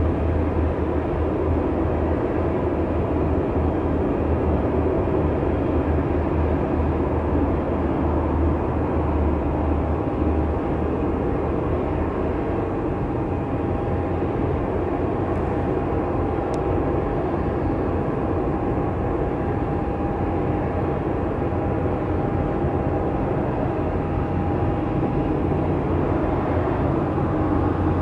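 Airbus A320 jet engines running at low taxi power: a steady rumble and hiss, with a faint steady whine in the middle stretch.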